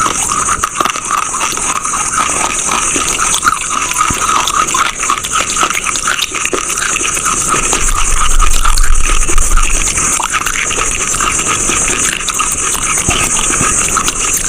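Close-up crunching and chewing of chalk: a dense run of irregular short cracks and clicks over a steady high hiss.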